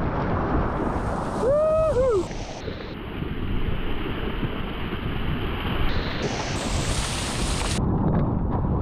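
Wind buffeting the microphone over rushing, splashing water as a sea kayak runs through surf. About a second and a half in, a short two-part whoop from the paddler.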